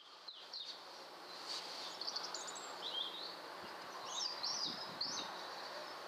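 Small songbirds chirping and singing in woodland: short high chirps and quick rising and falling whistles scattered throughout, over a steady faint outdoor hiss.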